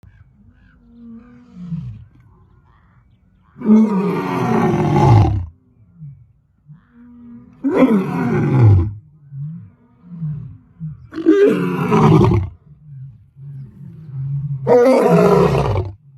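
A large animal's loud calls: four long calls, each falling in pitch, with soft low grunts between them.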